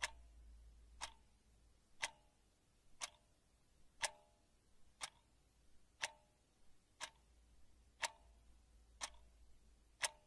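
Clock ticking once a second, eleven evenly spaced ticks alternating slightly louder and softer, tick-tock, each with a faint short ring.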